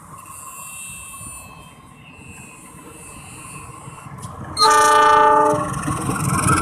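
Diesel locomotive horn sounding one blast of about a second, a little over halfway through, with several pitches at once. Afterwards a low rumble swells as the locomotive passes close by.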